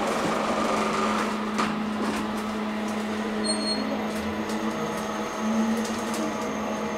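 Passenger elevator car descending, with a steady low motor hum. A few faint clicks come through, and a brief high beep sounds about three and a half seconds in.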